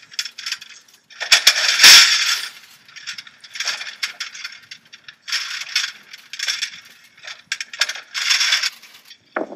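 A bundle of bent metal conduit hoops clinking and rattling together as it is carried and shifted, in five or six separate bursts, the loudest about two seconds in.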